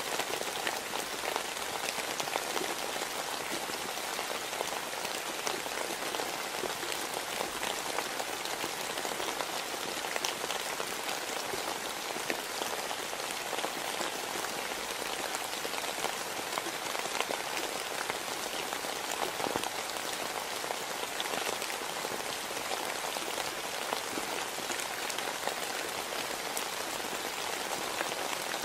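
Steady rain falling: an even hiss with scattered sharper drop ticks, unchanging throughout.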